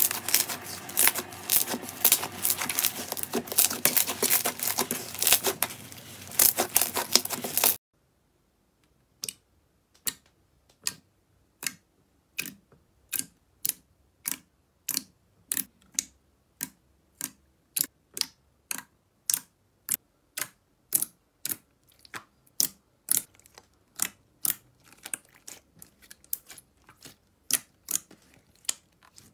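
Slime squished and kneaded by hand, a dense run of crackling clicks. About eight seconds in this cuts off, and a thick, glossy slime pressed and poked with the fingers gives sharp single pops, about one to two a second.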